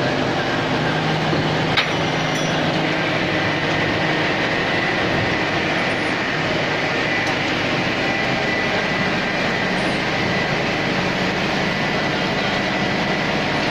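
Sugarcane crushing machine (cane carrier and five-roller mill) running, a loud steady mechanical din. A sharp knock about two seconds in, and a thin high whine from about then on.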